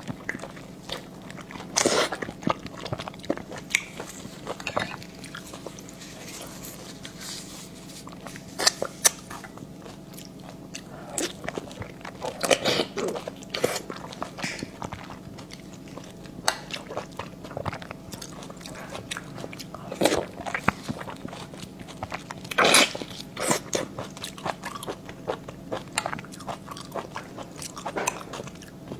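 Close-miked mouth sounds of eating: irregular wet smacks, bites and chewing, with louder clusters of bites about 2, 12, 20 and 23 seconds in. A faint steady hum sits underneath.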